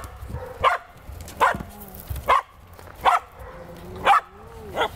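Dog barking during rough play: about six short, sharp barks, roughly one every second.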